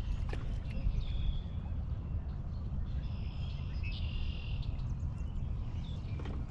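A high animal call, each about half a second to a second long, repeated several times over a steady low rumble.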